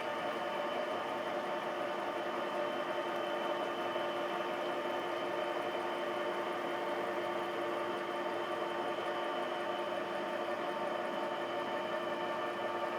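Metal lathe running steadily, turning a slender shaft held in a steady rest. Its drive gives a constant, even whine.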